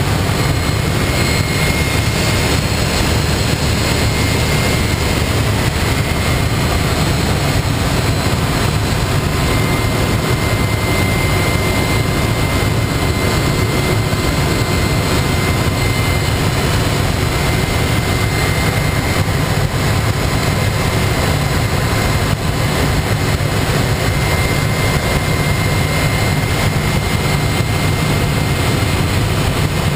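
Turboprop engine and propeller of a de Havilland Canada DHC-3 Turbo Otter running steadily in flight, heard inside the cockpit, with a faint high whine over the loud steady noise.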